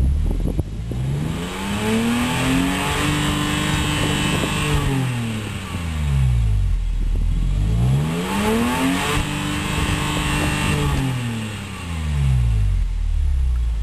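BMW E46 M3 on its stock exhaust, the S54 3.2-litre inline-six revved twice while stationary. Each time the pitch climbs for about two seconds, holds briefly at the top, then falls back to idle.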